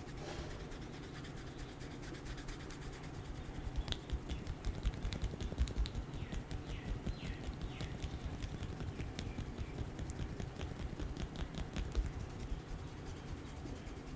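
Rapid, rhythmic percussive hand-massage strokes on the head and neck: quick sharp taps with dull thumps underneath, building up a few seconds in and easing off near the end.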